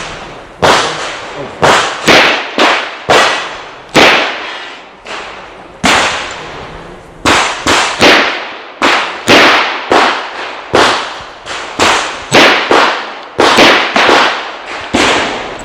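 A string of rapid handgun shots fired during a timed IDPA course of fire, mostly about two a second with short pauses between groups. Each shot is sharp and trails off in a brief echo.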